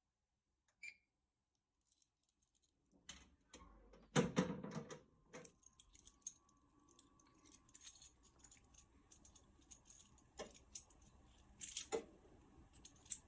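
A bunch of keys jangling in hand: irregular jingles and clicks begin about three seconds in, after near silence, with the loudest rattle about a second later.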